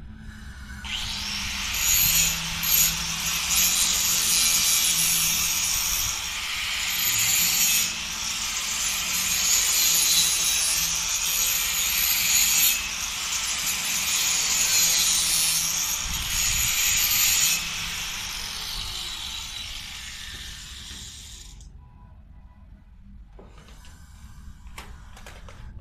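Handheld angle grinder grinding on a galvanized iron handrail post. It starts about a second in and runs for some twenty seconds, its hiss swelling and dipping as the disc is pressed on and eased off, then stops. A few clicks and knocks from the tool being handled follow near the end.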